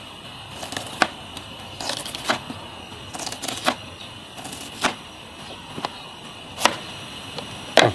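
A knife cutting through fresh bamboo shoots: about ten sharp cuts at uneven intervals.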